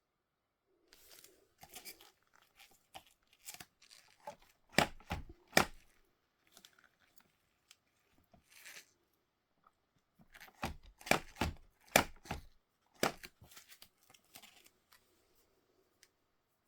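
Toy packaging being torn open and handled: irregular tearing and crinkling with sharp snaps. The snaps come in two loud clusters, about five seconds in and again around eleven to thirteen seconds.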